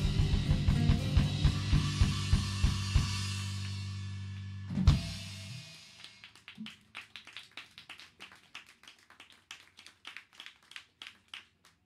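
Live rock band with a drum kit and guitars playing the closing bars of a song, with steady drum beats that fade out and then one loud final hit about five seconds in that rings briefly. Sparse sharp clicks follow.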